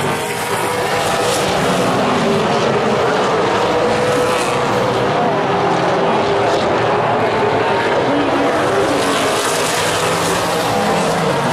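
A pack of Super Late Model stock cars racing by at speed, their V8 engines running hard. Several engine notes overlap and rise and fall as the cars pass.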